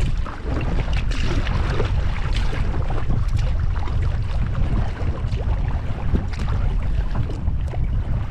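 Wind buffeting the microphone in a steady low rumble over choppy lake water, with waves and paddle splashes slapping around a kayak.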